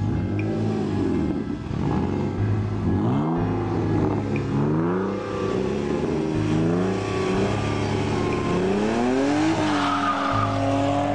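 Car engine accelerating hard, its pitch climbing and dropping back several times as it runs up through the gears, over a steady low rumble.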